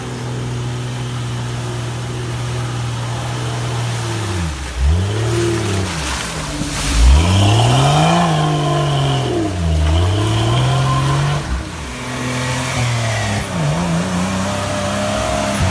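Lifted Jeep Cherokee's engine revving hard up and down, over and over, as it drives its mud tyres through deep mud.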